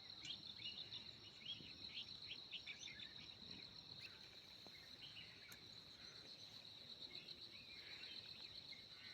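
Faint natural ambience: a steady high-pitched insect trill runs throughout, with many short bird chirps scattered over it.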